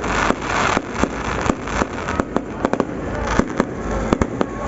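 Fireworks going off: a rapid, irregular run of sharp bangs and pops, several a second, over a crackling hiss.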